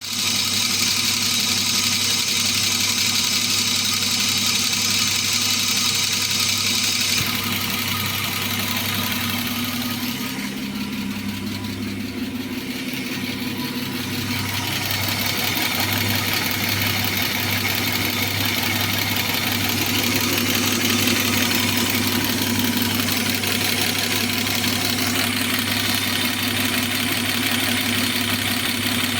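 BMW M50B25 2.5-litre straight-six idling with a rapid, steady ticking knock from its hydraulic lifters (lash adjusters).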